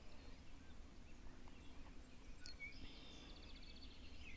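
Faint birdsong over a quiet, low outdoor background. The birds start calling about halfway through, including a short quick trill of rapid notes.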